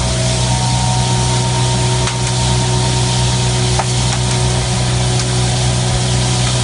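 A motor running steadily: a constant low hum under a loud, even hiss, with a few faint clicks.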